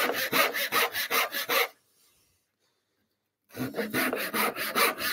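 Small dovetail saw cutting wood in quick short strokes, about six a second, as it saws down a marked line. The sound drops out completely for nearly two seconds in the middle, then the sawing resumes.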